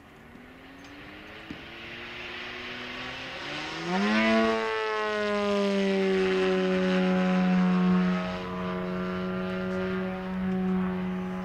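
Four-cylinder engine of a large-scale radio-controlled Extra 300 LX aerobatic model plane in flight, its note rising gradually and growing louder, then jumping sharply higher about four seconds in. The engine holds a high, steady pitch at its loudest for a few seconds, then eases off a little near the end.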